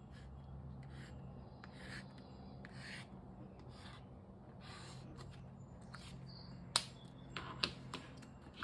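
Fine marker pen drawing short dashes along the creases of a folded paper plate: faint scratchy strokes every half second or so, over a low steady hum. A sharp click comes near the end, followed by a few softer clicks.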